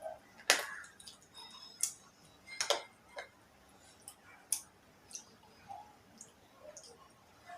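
Pencil being bitten and crunched close to the microphone: a series of sharp, irregular cracks and clicks, the loudest about half a second in.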